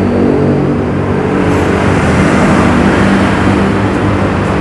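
A loud, steady engine running; its even hum turns rougher and noisier about a second in.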